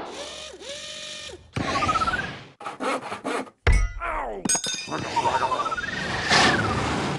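A choppy string of animated-logo sound effects: mechanical rubbing and scraping noises mixed with whistle-like tones that glide up and down, broken by several abrupt cuts.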